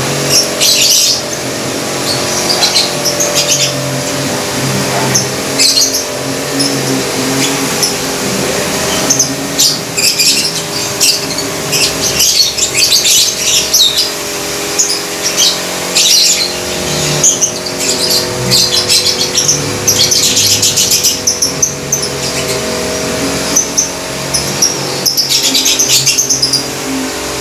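Several caged lovebirds calling at once: repeated bursts of shrill, rapid chattering and chirps, one dense run of fast notes coming about two thirds of the way in. Underneath runs a steady low hum.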